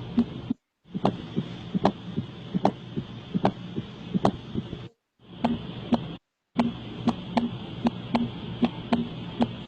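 Recorded heart sounds played as a string of short clips: a regular beat of soft low thumps and sharp clicks over a steady hiss, with abrupt silent breaks between clips. The beat is slower in the first clip and faster in the last.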